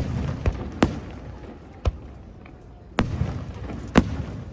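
Aerial fireworks bursting: about six sharp bangs at uneven intervals, each followed by a low rumbling echo, the loudest about four seconds in.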